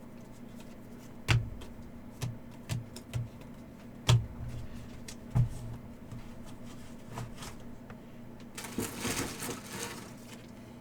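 Trading cards and packs handled on a tabletop: several sharp taps and clicks over the first five or six seconds, then a rustle lasting about a second and a half near the end, over a faint steady hum.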